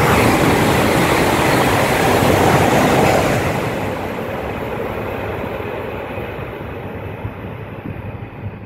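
E5 series Shinkansen train running past on the station's through track at speed: a loud rushing roar of air and wheels, loudest for the first three seconds, then dropping away and fading as the train recedes.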